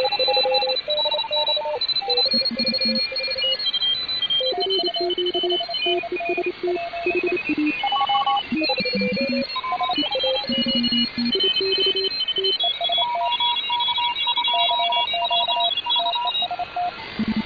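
Shortwave radio reception of the 160-metre amateur band at 1830 kHz through a WebSDR receiver. Several overlapping signals beep at once, each a steady tone hopping between fixed pitches every fraction of a second, some low and some high, over a steady radio hiss.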